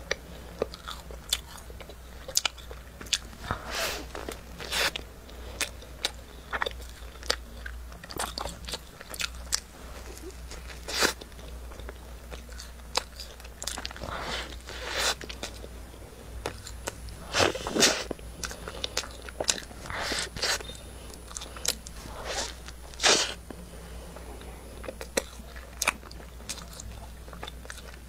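Close-miked biting and chewing of a chocolate-glazed flaky pastry (a 'dirty bun'), heard as irregular crisp crackles and mouth sounds. Several louder bites stand out among them.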